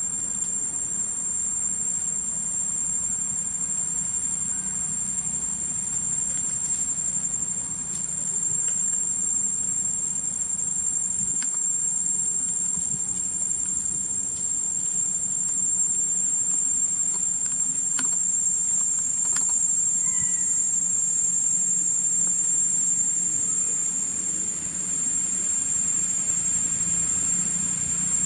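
A steady, shrill insect drone, one high tone with fainter tones just above it, over a low steady hum, with a few faint clicks.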